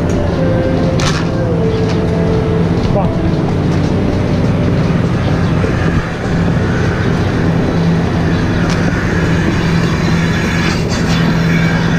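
Steady mechanical hum of a dairy milking system running, with a few sharp clicks and knocks from the milking units and hoses being handled.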